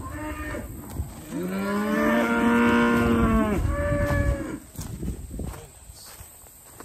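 Cattle mooing: a short moo, then one long moo starting about a second in, overlapped near its end by a shorter, higher moo.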